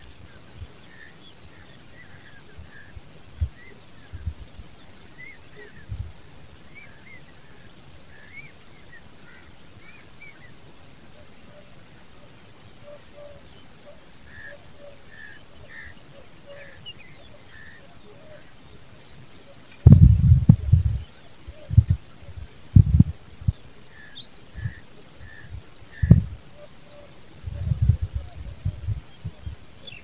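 Pipit nestlings begging at the nest: a fast, unbroken string of very high, thin ticking calls that starts about two seconds in and pauses briefly near the middle. A few low thumps break in, the loudest about twenty seconds in.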